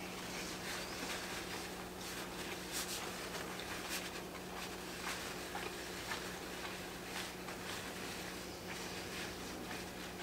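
Eating sounds: faint, irregular small clicks, ticks and mouth noises of chewing lobster and handling the shell and meat, over a steady low electrical hum.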